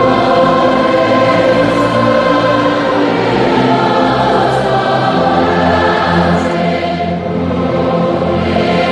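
Background choral music: sustained, layered voices holding slow chords, with a change of chord and a deeper bass entering about five seconds in.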